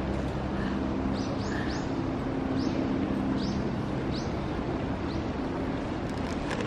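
Steady low mechanical hum of outdoor background noise, with about seven short, high bird chirps in the first five seconds and a few light clicks near the end.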